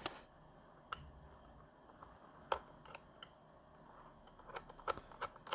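Light clicks and taps of hands working on the plastic casing of a power bank being taken apart, a few scattered at first and then coming in quick succession near the end.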